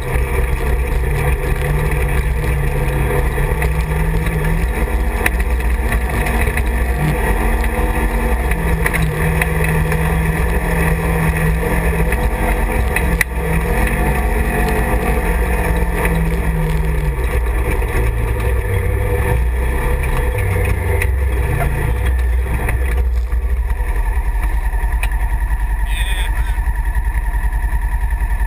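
Side-by-side UTV engine running under way over a rough, muddy trail, its pitch rising and falling with the throttle and settling lower in the last third.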